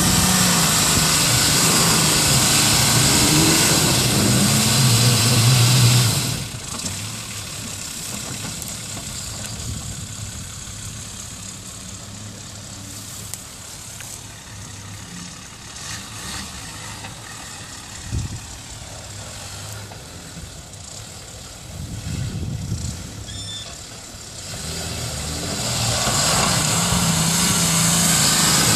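Nissan Patrol Y60's TD42 4.2-litre straight-six diesel working hard as the truck climbs a steep slope. About six seconds in the engine drops suddenly to a quiet idle while the truck backs down the hill, with a single sharp knock partway through, and near the end it labours loudly again as the truck climbs once more.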